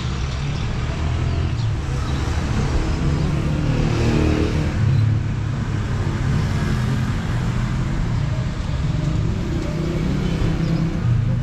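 Street traffic: vehicle engines running and passing, with a steady low rumble and no pauses.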